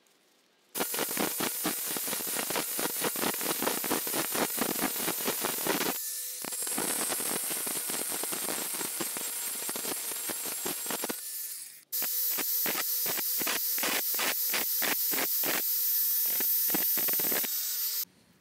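Cordless angle grinder grinding the steel iron of a hand plane clamped in a bench vise, the disc's high whine over the grind of metal. It starts within the first second, dips briefly about six seconds in, stops for a moment about twelve seconds in, then runs again until it cuts off near the end.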